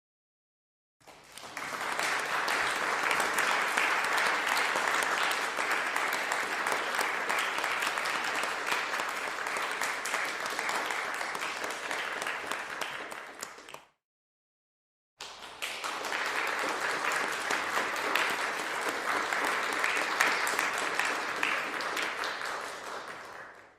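Crowd applause: many people clapping in a dense, steady patter, in two separate bursts of about twelve and nine seconds, each swelling quickly and dying away, with a second of silence between them.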